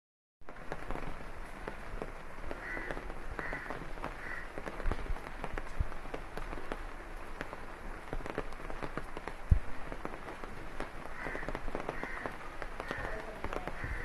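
Steady rain falling on leaves and ground, with many small drip ticks and a louder thud about nine and a half seconds in. A bird calls in two sets of three short calls, a few seconds in and again near the end.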